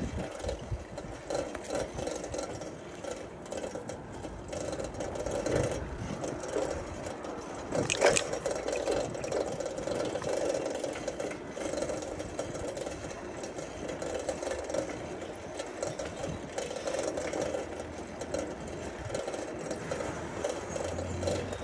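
A bicycle being ridden, its tyres and frame rattling steadily, with one sharp knock about eight seconds in.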